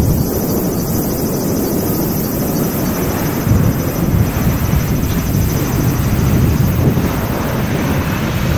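A Dash 8-400 (Q400) turboprop airliner's engines and propellers running as it lands and rolls out along the runway: a steady, loud noise that swells slightly partway through.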